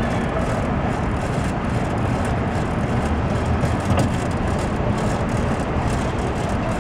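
Steady rumble and hiss of street traffic and road noise, heard from an open pedicab moving through city traffic. A brief knock about four seconds in.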